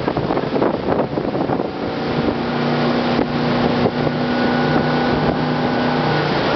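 Motorboat engine running steadily under way while towing a tube, with wind buffeting the microphone and water rushing past. The engine's steady hum comes through more clearly from about two seconds in.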